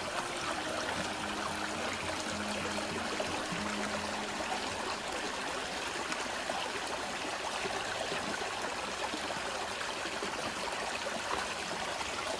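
Small river flowing steadily, an even sound of running water.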